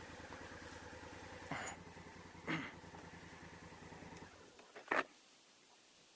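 Motorcycle engine idling faintly, then switched off about four seconds in, with a few short knocks around it.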